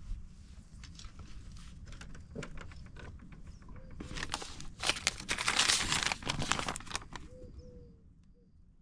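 Handling noise and footsteps, then a sheet of lined notebook paper crinkling and rustling as it is handled, loudest about five to six seconds in.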